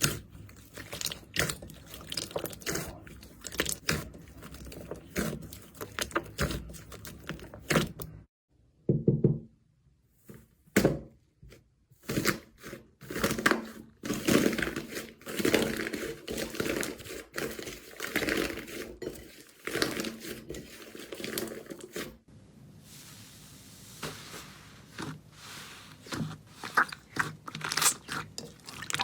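Hands working slime: rapid sticky pops, crackles and crunches as it is squeezed, stretched and poked, with short squelches between, stopping briefly about eight seconds in.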